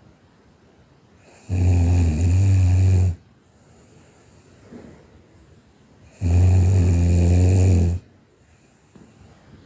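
A person snoring in their sleep: two loud, low-pitched snores, each about a second and a half long, roughly five seconds apart.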